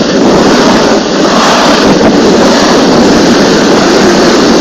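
Plastic hip sled sliding over snow: a loud, steady scraping rush, with wind on the microphone.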